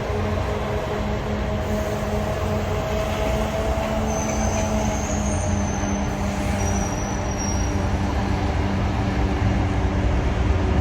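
Commuter train at the terminal running with a steady hum and rumble, with a faint high-pitched squeal about four seconds in.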